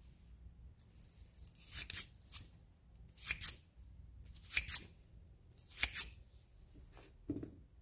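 Bronze bristle brush scrubbing in and out of the neck of a fired brass rifle case. The strokes are short and scratchy and come in quick pairs, about one pair a second, starting about two seconds in.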